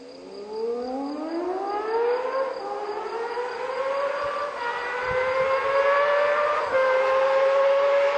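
Honda CBX 1050's inline six-cylinder engine accelerating hard, a high wail climbing steeply in pitch and then more slowly. The pitch dips briefly twice at gear changes, once about a third of the way in and again near the end, and the sound grows louder throughout.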